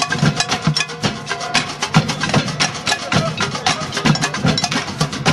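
Percussion music: dense, rapid clacking and tapping strikes over recurring low drum thumps.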